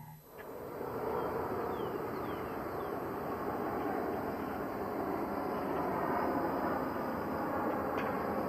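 Steady outdoor background noise, an even rush with no distinct events, starting just after a piece of music cuts off.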